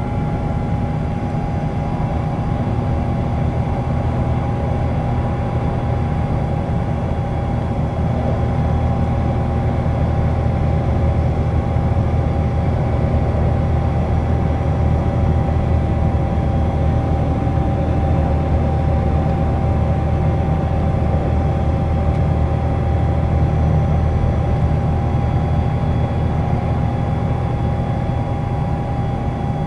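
Interior sound of an Iveco Crossway 14.5 LE bus cruising at steady road speed: a constant low diesel engine drone with a steady high whine over it.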